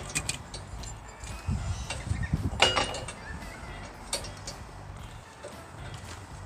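Work handling on a sawmill's steel track: a few knocks and low thumps, with a sharp metallic clink that rings briefly about two and a half seconds in.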